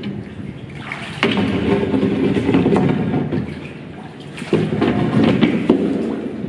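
Oars of a small rowboat pulling through the water in two strokes, about a second in and again past four seconds, each starting suddenly and trailing off in a swish of water.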